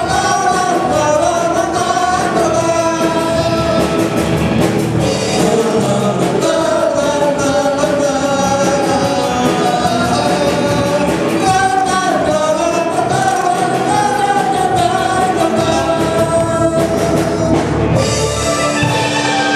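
Live amplified band performance: a group of men and women singing a melody together into microphones, backed by keyboard, electric guitar and a drum kit with a steady beat. Near the end the singing drops out and a held note rings on.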